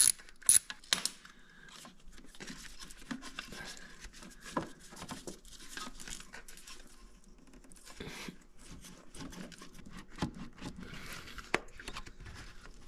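Three ratchet clicks about half a second apart in the first second as the radiator hose clamp is loosened. Then scraping, rustling and small knocks as hands twist and pull the rubber upper radiator hose off its fitting.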